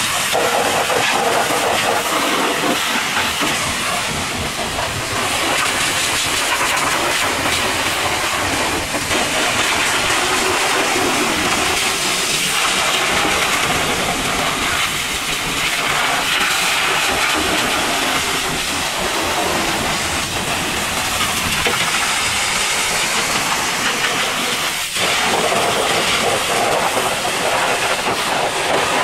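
High-pressure washer jet blasting water and mud off a truck's tyre and steel wheel rim: a loud, steady hiss that swells and dips slightly as the lance is swept across the wheel.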